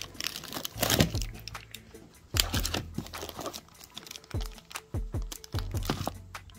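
Plastic wrapping crinkling and rustling, with scattered sharp clicks and knocks, as plastic-bagged bicycle pedals are handled in a cardboard box. Background music plays underneath.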